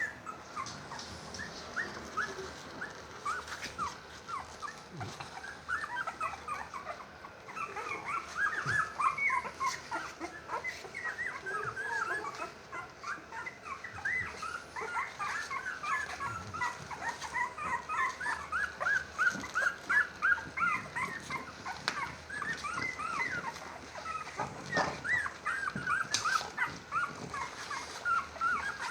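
Litter of twelve-day-old puppies whimpering and squeaking: many short, high-pitched squeals overlapping one another, busier from about eight seconds in.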